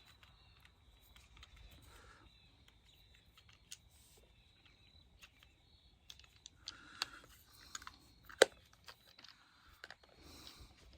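Faint small clicks and rustling of a 30-amp shore power plug and its cable being handled as the wire is fed through the plug, with one sharper click about three-quarters of the way in.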